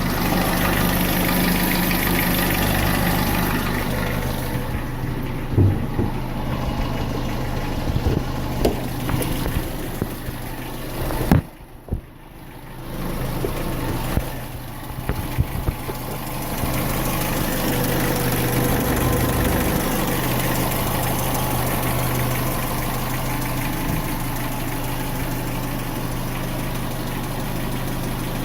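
Renault K7J 1.4-litre four-cylinder petrol engine idling with a knock, which the owner blames on the timing drive. The sound drops quieter for a couple of seconds near the middle, then returns.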